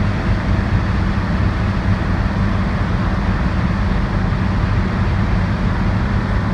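1959 Chevrolet Corvette C1's 283 V8 running steadily while cruising at about 60 mph, with road noise, heard from the driver's seat.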